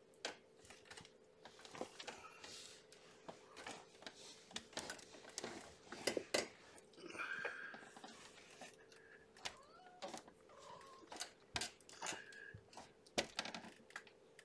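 Scattered light clicks, taps and soft rustling as kittens are handled on fabric bedding, over a faint steady hum.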